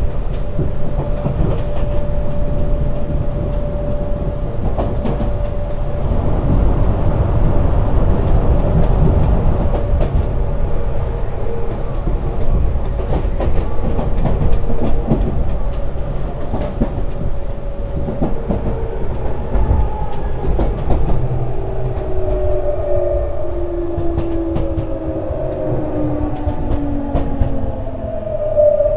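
Cabin running noise of a Tokyu 9000 series electric train, with wheels clicking over rail joints. From about two-thirds of the way through, its Hitachi GTO-VVVF inverter and traction motors whine in several falling tones as the train brakes and slows.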